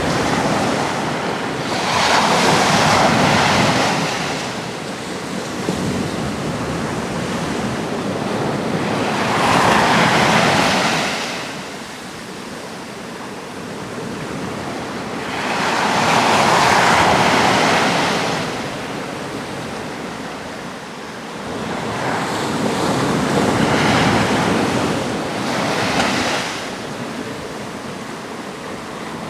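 Sea waves breaking on a rocky Atlantic shore, each wave surging up and washing back, with four big swells at roughly six- to seven-second intervals. Some wind runs underneath.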